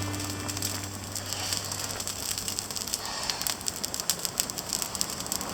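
Wood fire crackling with irregular sharp pops, the fading tail of background music under it for about the first second; the sound cuts off suddenly at the end.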